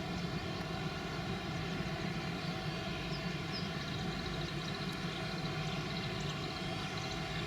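Boeing 777-300 jet engines running steadily at a distance: a continuous rumble with a layered, steady whine.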